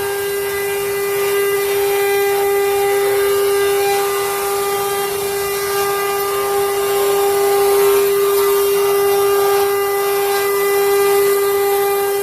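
CNC router spindle carving wood, running with a steady, unbroken high whine over the hiss of the cut.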